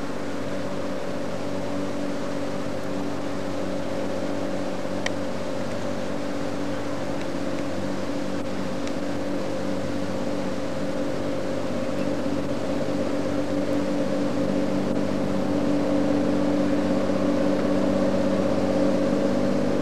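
Engine of a Pemberton tourist tramcar running with a steady drone as the tramcar moves slowly along the track, growing a little louder near the end.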